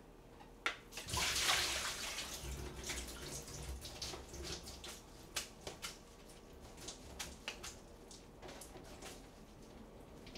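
Cold tap water running and splashing in a kitchen sink as cooked noodles are rinsed, starting about a second in and thinning out to scattered splashes and drips.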